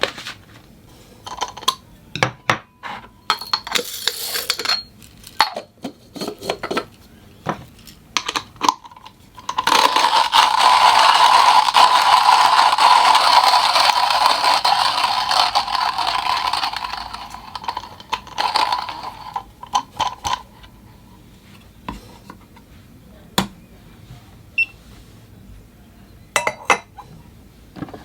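Small hard clicks and clinks of coffee beans and utensils being handled. About ten seconds in, a loud steady whirring starts, typical of an electric coffee grinder grinding beans; it runs for about seven seconds and then dies away, followed by a few scattered clicks.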